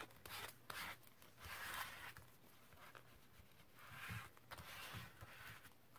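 Faint rustling and rubbing of paper being pressed and smoothed down by hand as a glued piece is set in place, with a few soft clicks.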